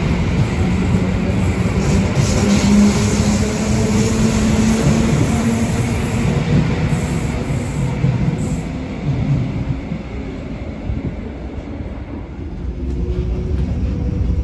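Suburban electric train running on the rails: a steady rolling rumble with a motor hum, easing for a couple of seconds about ten seconds in before building again.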